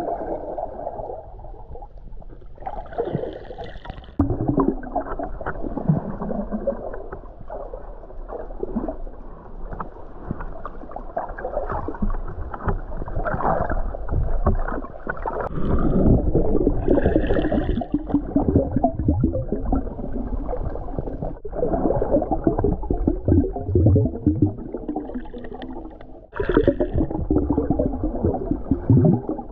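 Muffled sound of water heard through an action camera held under shallow water, moving and gurgling against the camera in irregular surges as the snorkeler swims and reaches for scallops.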